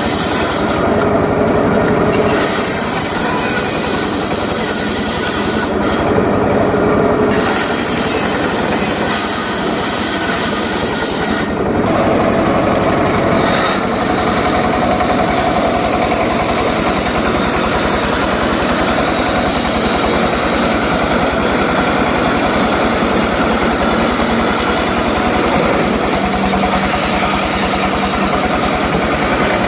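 Engine driving a homemade circular saw rig, running steadily with a loud mechanical rattle; the high hiss drops out briefly three times early on.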